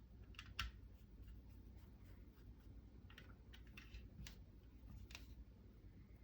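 Faint, scattered light clicks of small screws, nut plates and a Torx driver being handled and fitted on a rifle receiver, the sharpest click about half a second in, over a low room hum.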